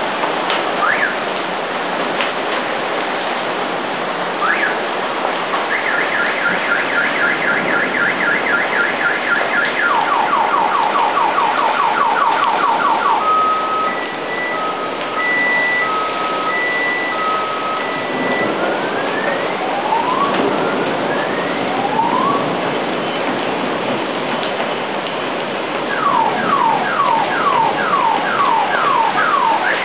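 Heavy rain pouring steadily, with a car alarm sounding over it and cycling through its tones: fast chirps, rapid pulses, an alternating two-tone beep, rising whoops, then repeated falling sweeps.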